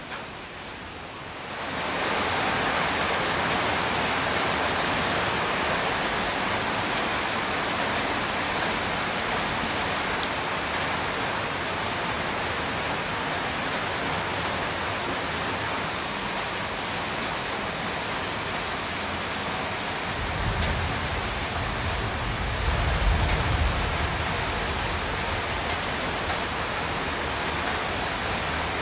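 Monsoon rain falling steadily, an even hiss that gets louder about a second and a half in. A low rumble swells about twenty seconds in and fades a few seconds later.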